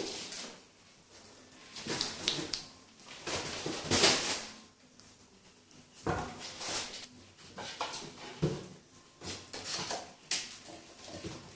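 Ocicat kitten scuffling as it wrestles and swats at a hand, with paws scrabbling on a hard surface and fur rubbing. It comes in irregular rustling bursts, with a couple of dull thumps in the second half.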